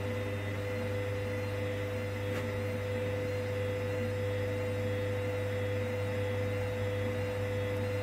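Hoover Dynamic Next washing machine's drum motor turning the wet wash load, a steady whine over a low hum with no change in pitch.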